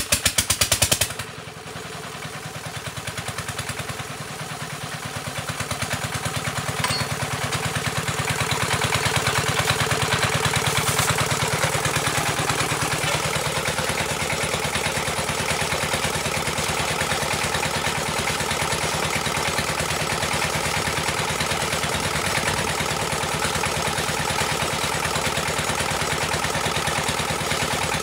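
A motor running steadily with a fast, even pulse, growing louder over the first several seconds and then holding level. A burst of rapid knocking comes in the first second.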